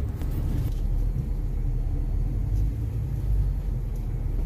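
Tow vehicle's engine running with a steady low rumble while pulling a boat trailer.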